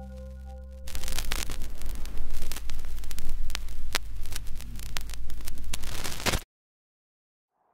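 Old-film crackle: a steady hiss with a low hum and irregular pops and clicks, like a worn film soundtrack, starting about a second in after the last notes of the music fade, and cutting off abruptly near the end into silence.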